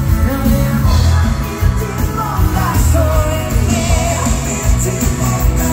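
Live dansband music amplified through the PA: electric bass and drums keeping a steady dance beat, with a woman singing lead.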